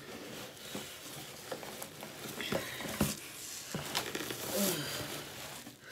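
Cardboard box and packaged parts being handled: a string of light, scattered knocks and clicks with soft rustling.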